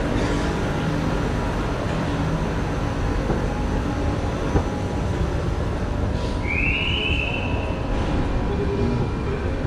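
Steady rumbling hum of an underground metro station, with a train standing at the platform. About six seconds in, a short high tone rises and then holds for about a second and a half.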